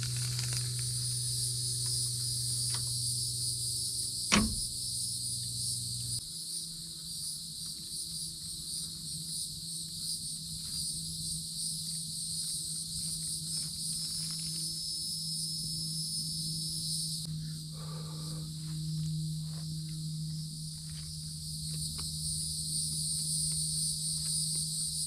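Steady chorus of crickets and other insects chirring, with a low steady hum underneath that shifts up in pitch about six seconds in, and a single click about four seconds in.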